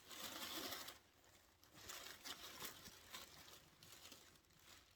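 Faint rustling and crinkling as the freshly unwrapped blanket and its packaging are handled, loudest in the first second, then softer, scattered rustles.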